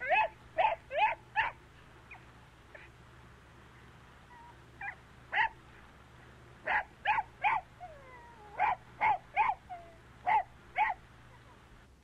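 A dog barking in quick runs of short, sharp barks, with a pause of a few seconds after the first run and a faint falling whine between later barks.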